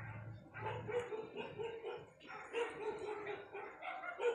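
A dog barking repeatedly, in short barks about half a second apart.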